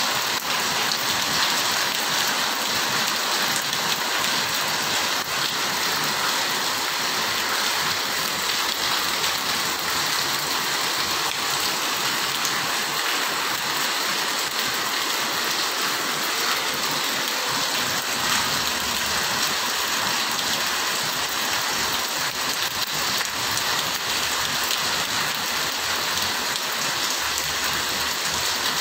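Heavy rain falling steadily on paving and sheet roofs, a dense, even hiss with no let-up.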